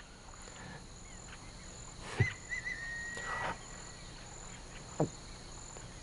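Outdoor nature ambience: a high insect trill that comes and goes, and a bird's short whistled call about two seconds in. Two short sharp knocks, the first about two seconds in and the other about five seconds in.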